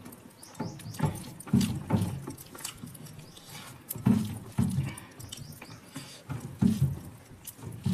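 Close-up chewing and mouth sounds from someone eating, in irregular soft munches and smacks that come in pairs every second or two.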